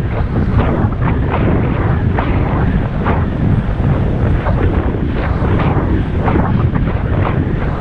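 Wind buffeting the microphone of a camera riding along on a moving bicycle: a loud, steady rumble with irregular gusty flutters.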